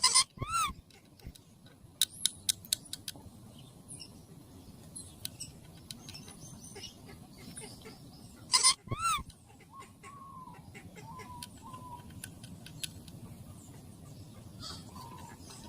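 Parrot calling: two loud, arching squawks, one about half a second in and another about eight and a half seconds in, with a quick run of sharp clicks around two to three seconds in and soft short whistles after the second squawk.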